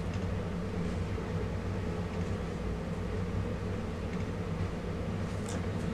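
Steady low hum of room noise, with a faint click or two near the end.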